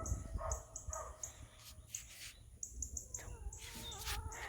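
A dog whining faintly in a thin, held tone in the second half, with a run of short, high chirps.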